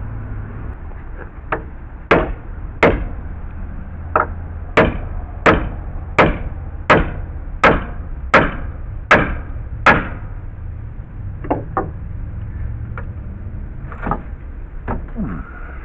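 Hammer blows during deck demolition, driving in to pry screwed-down boards loose: about a dozen sharp, evenly spaced strikes, a little faster than one a second, followed by a few lighter, scattered knocks.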